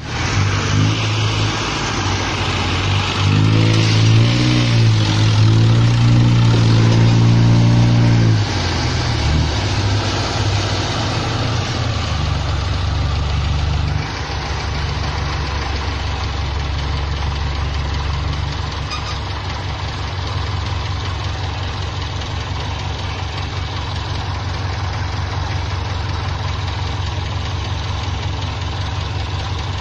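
Farm tractor's diesel engine working under load while pulling a loaded truck out of mud: it revs up hard for several seconds, drops back about eight seconds in, then runs steadily at a lower pitch.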